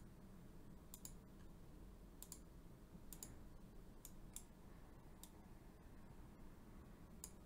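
Computer mouse clicking: several faint, sharp single clicks at irregular intervals over a faint steady low room hum.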